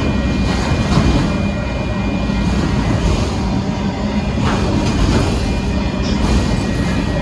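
Freight train of autorack cars rolling past at a grade crossing: a steady rumble and rattle of wheels on rails, with a steady high tone over it.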